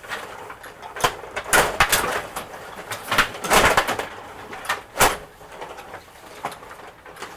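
Rod hockey game in play: a run of sharp plastic and metal clacks as the rods are pushed and spun and the puck strikes the players and the boards, loudest about one and a half, three and a half and five seconds in.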